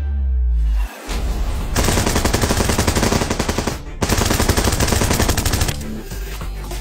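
Rapid automatic gunfire in two long bursts with a brief break between them, after a deep low rumble at the start.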